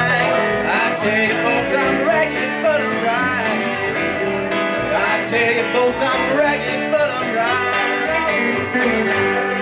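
Live country band playing: electric guitar, acoustic guitar and upright bass, with a steady plucked bass pulse underneath.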